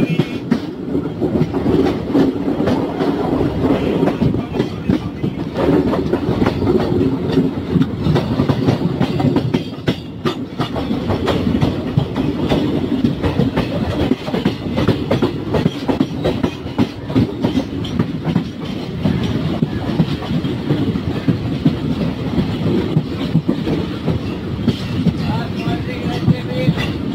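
Express train coaches running at speed, heard from an open coach doorway: a steady rumble of steel wheels on the rails with a dense clickety-clack clatter and rattling of the coach.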